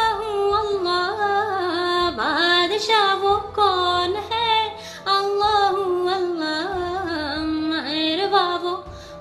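A young woman singing solo, her voice bending through ornamented notes and holding some long tones.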